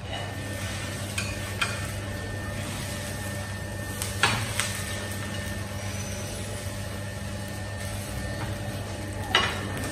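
Pesarattu (mung bean dosa) sizzling as it fries on a flat pan, over a steady low hum. A spatula clicks and scrapes against the pan several times, loudest about four seconds in as the dosa is lifted and flipped.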